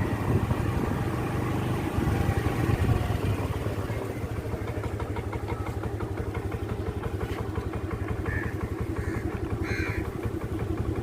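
A small vehicle's engine running steadily, its rapid firing pulses even throughout.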